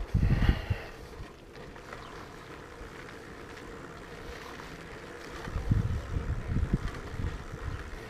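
Wind buffeting the microphone of a camera on a moving bike: gusty low rumbles in the first second and again near the end, over a steady quieter hiss.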